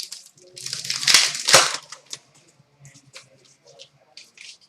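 Trading-card pack wrapper being torn open and crinkled, loudest about a second in, followed by light rustles and clicks of cards being handled.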